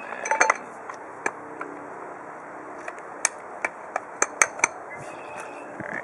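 Sharp metal clicks and clinks from a pointed steel bit and the chuck's retainer latch on an Arksen 1500W electric demolition hammer as the bit is fitted by hand. A quick cluster of clicks comes about half a second in, then single clicks follow spread through the rest.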